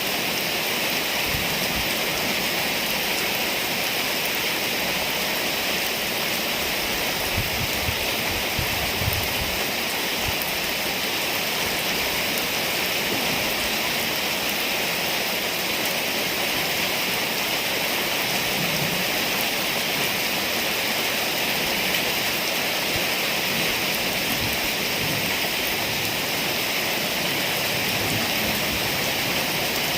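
Rainstorm rain pouring down steadily as an even hiss, with a few brief low thumps about seven to ten seconds in.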